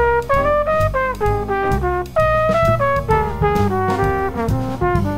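Trumpet playing a quick, moving jazz solo line over a swinging rhythm section of bass and drum kit.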